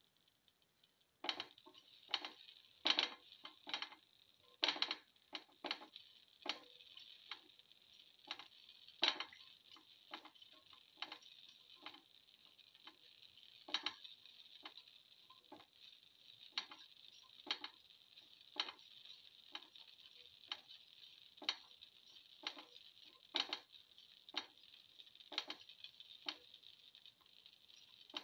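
Shallot pieces dropped into a pan of hot oil, landing with irregular sharp clicks and small spatters about one or two a second, over a light steady sizzle that starts about a second in as the first piece goes in.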